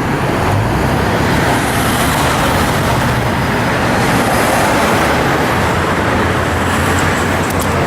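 Heavy road traffic streaming past: a steady, loud rush of tyres and engines, with no horns sounding.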